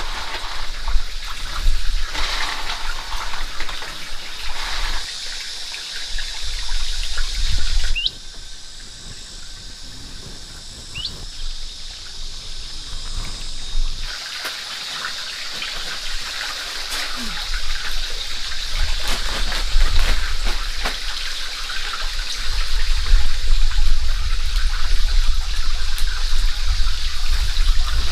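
Water splashing and trickling, with short knocks of handling.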